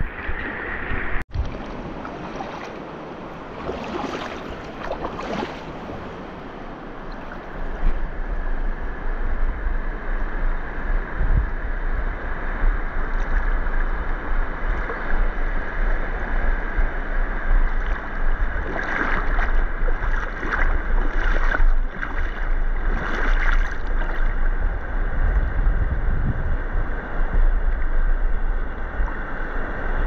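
Steady outdoor water noise with a brief cut-out about a second in; from about 8 seconds in, wind buffets the microphone with a low rumble.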